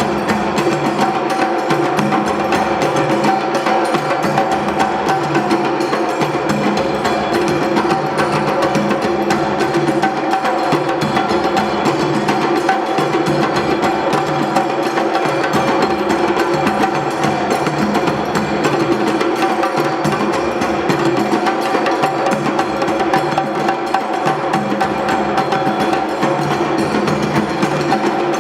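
A drumming ensemble playing a continuous, dense rhythm, with bright, sharp strokes over ringing drum tones and no breaks.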